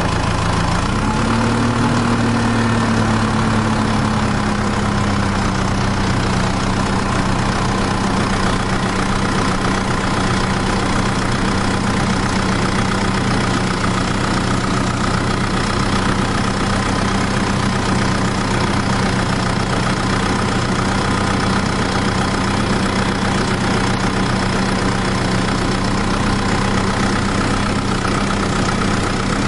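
Motor of a miniature DIY tractor running steadily while ploughing. It starts abruptly, its pitch rises slightly and then settles a little lower within the first few seconds, and then holds a constant hum.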